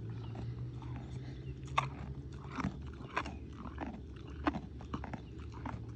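Mini Highland cow chewing a carrot: a string of irregular crunches over a steady low hum.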